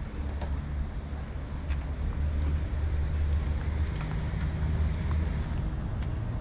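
A motor vehicle's engine running steadily, a low drone with light scattered clicks and rattles.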